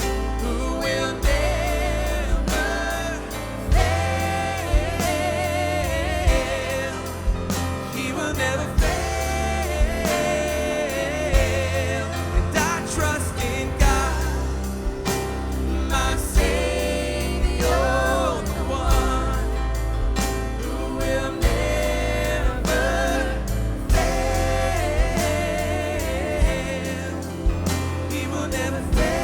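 Live worship band music: drums, bass and keys under a wavering melodic lead line, with regular drum hits over a steady beat.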